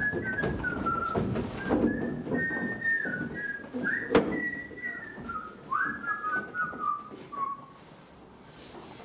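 A person whistling a tune in short held notes that step up and down, over scuffling and thuds of a stage struggle, with one sharp knock about four seconds in. The whistling stops near the end.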